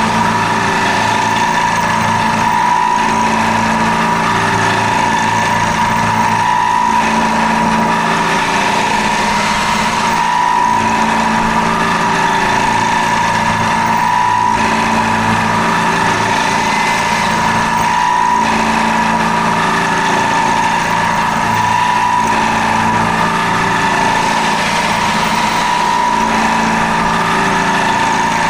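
CNC milling machine running a bore-roughing program with a 21 mm tipped tool: a steady high whine over a low machine hum that swells and fades every few seconds.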